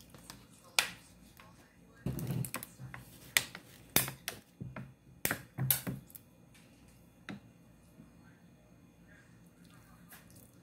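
Sharp clicks and crackles, packed most densely between about two and six seconds in, from a plastic water bottle being handled and drunk from.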